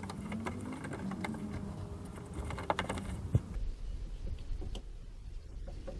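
Scattered light clicks and small metallic knocks of hand tools working on a truck engine, over a low background hum.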